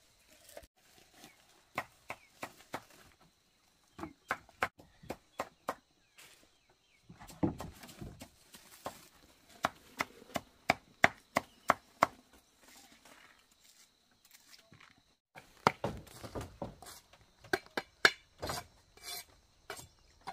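A machete chopping plant material against a wooden block: runs of sharp chops, about three or four a second, with short pauses between the runs.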